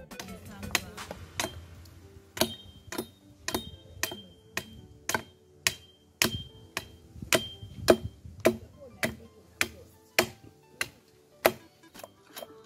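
Machete blade chopping into the end of a peeled wooden pole resting on a log: sharp, regular strikes about twice a second, several with a short metallic ring from the blade. Background music plays underneath.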